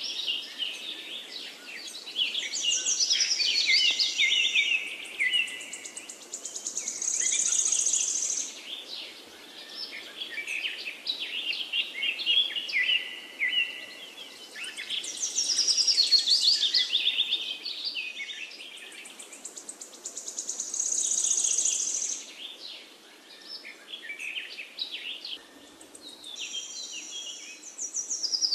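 Birds chirping and trilling, many overlapping high calls that swell and fade in passages a few seconds long.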